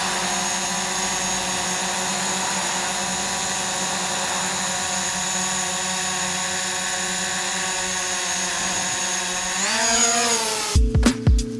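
DJI Mavic Pro quadcopter's propellers and motors whining steadily as it hovers, the pitch rising briefly near the end as the motors speed up. Music with a steady beat cuts in just before the end.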